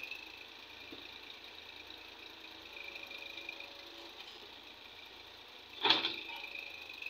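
Massey Ferguson tractor engines running as they power tractor-mounted excavators digging soil, with a steady high-pitched whine over the engine sound. A brief loud noise cuts in about six seconds in.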